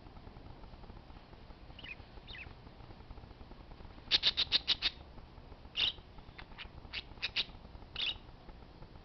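Parakeets calling: a couple of faint chirps about two seconds in, then a quick run of six sharp calls, followed by scattered single calls.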